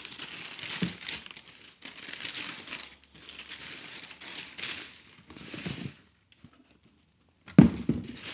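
Wrapping and tissue paper crinkling and rustling in several bursts as it is pulled out of a sneaker box. After a short pause, a single loud thump near the end.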